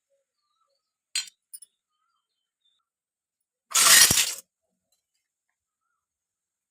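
Small hard toy kitchen pieces clinking: a sharp click about a second in, two faint ticks after it, then a louder clatter lasting under a second about four seconds in.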